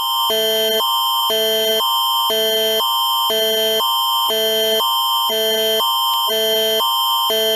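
Canadian Alerting Attention Signal (the Alert Ready tone): an electronic alert that switches between a high chord and a low chord about twice a second over a steady high tone. It is the attention signal that marks the start of a Canadian emergency alert.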